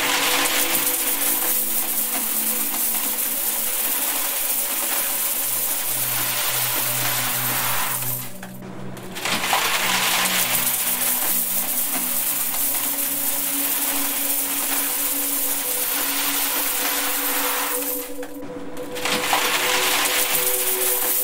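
A steady stream of coins pouring and clinking into a metal box, a dense metallic clatter that drops away briefly twice, about 9 and 19 seconds in. Under it, several steady low hum tones sound together.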